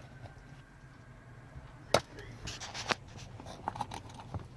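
Sharp clicks and light knocks from a screwdriver and plastic interior trim being handled, the loudest a single click about two seconds in, followed by small clusters of clicks.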